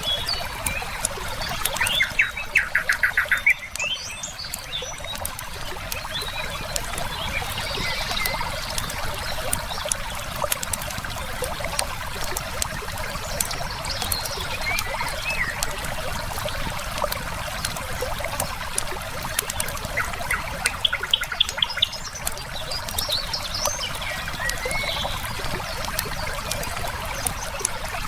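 Flowing river water with a steady rush, firewood crackling in short clicks throughout, and songbirds chirping. A bird gives a rapid pulsed trill about two seconds in and again about twenty seconds in.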